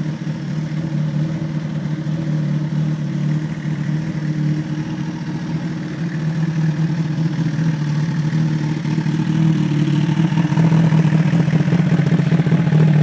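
A 2007 Suzuki GSX-R1000's inline-four engine idles steadily. From about ten seconds in it gets louder, with a fast, regular ticking added.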